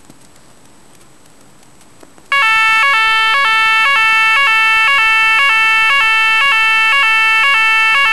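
YODalarm fire alarm sounder switched on with a newly selected tone from its dip switches. It starts abruptly about two seconds in and sounds loudly as a two-tone warble, switching rapidly back and forth between two pitches.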